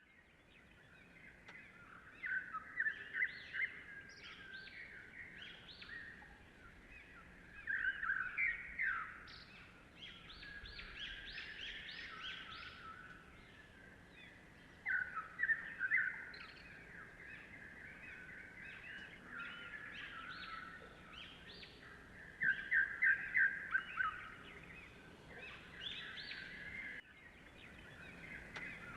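Birds chirping and calling, many short overlapping chirps, with several louder bursts of quick repeated chirps.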